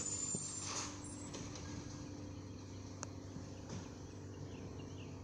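Diesel engine of a garbage truck running steadily down the street, a low even drone with a few faint clicks.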